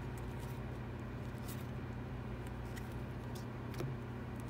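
Topps baseball cards being flipped through and slid from hand to hand, a few soft, short flicks of card stock scattered through. A steady low hum runs underneath.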